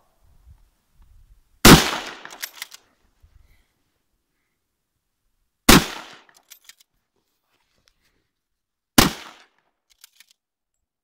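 Three shots from a Finnish Mosin-Nagant m/28-30 bolt-action rifle, about four and three seconds apart. Each shot is followed by a short run of clicks as the bolt is worked for the next round.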